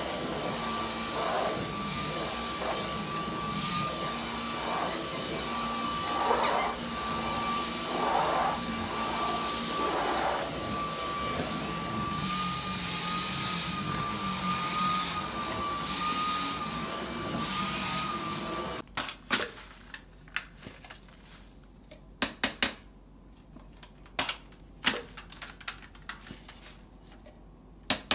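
Dyson V11 cordless stick vacuum running on carpet with a steady whine, its pitch held even as it is pushed about. It cuts off suddenly about two-thirds of the way through, leaving scattered sharp clicks and knocks.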